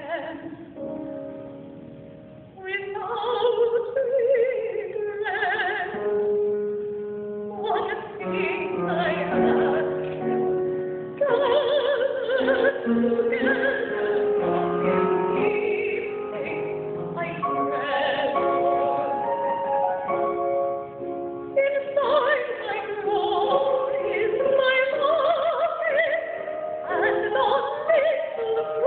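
A soprano singing an operatic line with strong vibrato, accompanied by a grand piano, after a softer opening couple of seconds.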